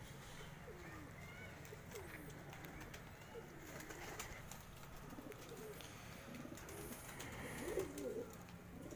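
Several domestic fancy pigeons cooing softly and overlapping one another, a little louder shortly before the end.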